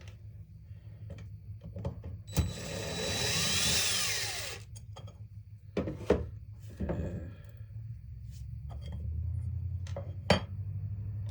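A hiss of aerosol carb cleaner being sprayed, about two seconds long, starting a couple of seconds in. Then a few sharp clicks and clacks of metal parts being handled, over a low steady hum.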